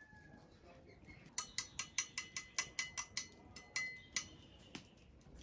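A quick run of about a dozen sharp clinks of a kitchen utensil knocking against cookware, about five a second for roughly three seconds, with a ringing note.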